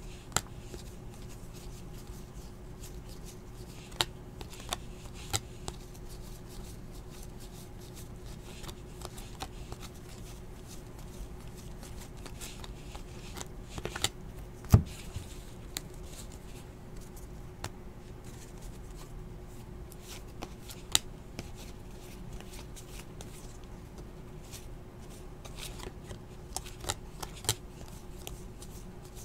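Basketball trading cards being handled: cards slid, flipped and sorted, with scattered light clicks and rustles and one sharp knock about halfway through.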